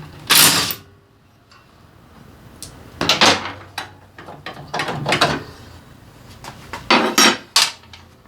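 Hand tools working on a motorcycle engine: a socket wrench and metal parts clinking and rattling in several short, sharp bursts with quiet gaps between them.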